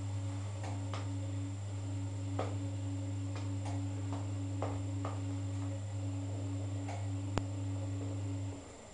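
Cylinda washing machine running with a steady low electric hum, scattered clicks and ticks over it; the hum cuts off suddenly about eight and a half seconds in.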